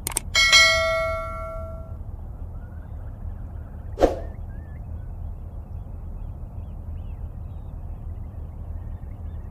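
Steady rush of flowing river water, with faint bird chirps. About half a second in, a loud metallic clang rings on for a second or so, and a single sharp knock comes about four seconds in.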